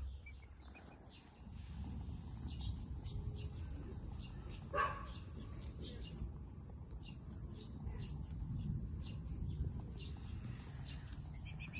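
Farmyard ambience: a steady low rumble, scattered faint chirps and ticks, and one short animal call about five seconds in, with a quick run of chirps near the end.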